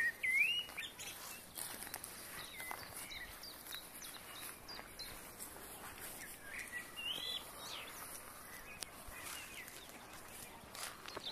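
Songbirds chirping and whistling in short scattered phrases, with a clear whistle near the start and another about seven seconds in. Under them is a soft rustle of footsteps on soft, damp grass.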